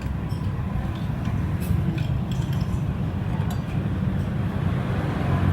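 A steady low rumble with a few faint, light metallic clinks, like hand tools and small engine parts being handled.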